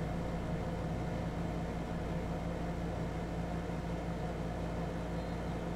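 Steady low electrical hum with a fan-like noise, from the portable electric cooktop under the pan; no sizzling is heard.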